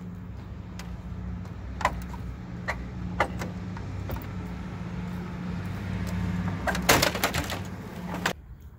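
Chrome-plated truck grille being pulled up off its retaining clips: scattered clicks and knocks, then a louder burst of clattering about seven seconds in as the clips let go. A steady low engine hum runs underneath and everything cuts off suddenly near the end.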